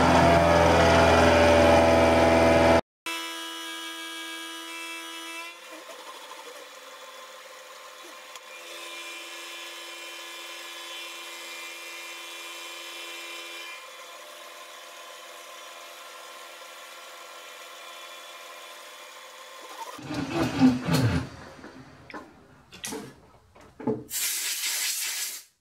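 Milling machine with an insert face mill cutting a metal block, loud at first; after an abrupt break the machine runs on more quietly with a steady whine. About twenty seconds in come a few knocks, then near the end a hissing blast of compressed air from a blow gun clearing chips off the part.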